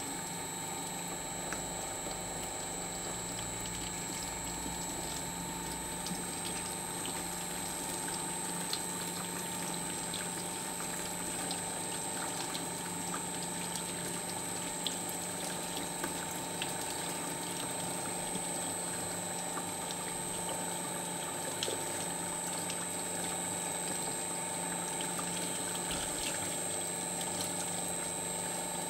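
Electric paper shredder running steadily with a constant whine while hot water pours and trickles through its cutters, which are gummed with sticky goo from a shredded Stretch Armstrong toy; small scattered clicks throughout.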